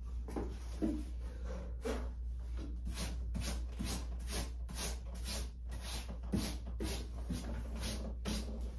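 Background music with a steady beat of light percussive hits, about two to three a second, over a low steady bass.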